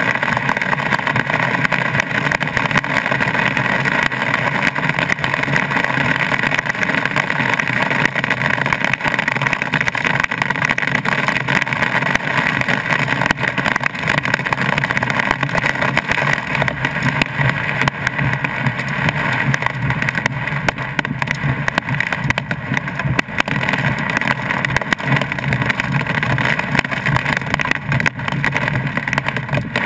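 Heavy rain mixed with hail pelting a car's roof and windscreen, heard from inside the cabin: a dense, steady hiss full of small hits.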